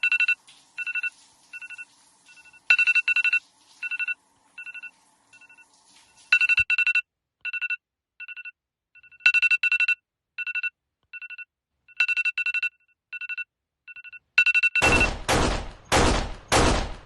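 Phone alarm beeping in short, high-pitched beeps: single beeps about twice a second, broken every few seconds by quick runs of three or four. Near the end, four loud bangs in quick succession drown it out.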